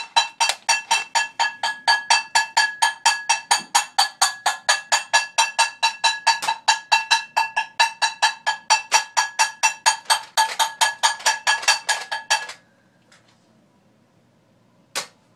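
Metal cooking pot being banged rapidly and repeatedly, about six ringing clangs a second, to wake a sleeper. The banging stops about twelve seconds in, with one more clang near the end.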